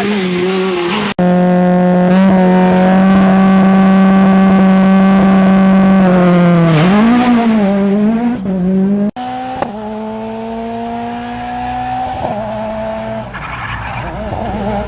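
Rally car engines at high revs. One is held at a steady high note, then dips and picks up again. After an abrupt change, another engine note climbs slowly as the car accelerates. The sound breaks off sharply twice, about a second in and about nine seconds in.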